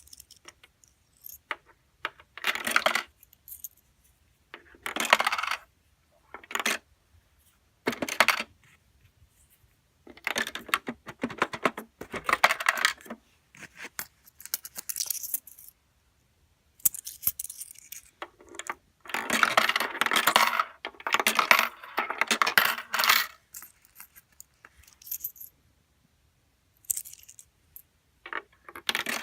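Coins dropping one after another into a LEGO coin vending machine and clattering through its brick mechanism, in repeated bursts with short pauses between them. These are invalid coins being rejected and returned.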